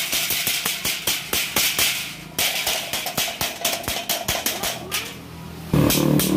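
Hammer blows on a galvanized steel metal furring channel, about four or five quick strikes a second with short pauses. Music with a beat comes in near the end.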